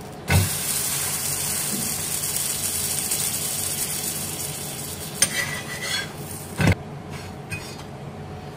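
Butter sizzling under a buttered burger bun on a hot iron tawa; the hiss starts suddenly and dies down over several seconds. Then a steel spatula scrapes and knocks against the tawa a few times as the bun is lifted off.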